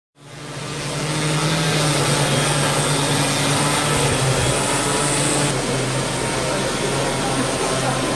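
SL-2 quadcopter delivery drone flying with a parcel slung beneath it, its propellers and motors giving a loud, steady hum and whir that comes in just after the start. The pitch of the hum shifts slightly about five and a half seconds in.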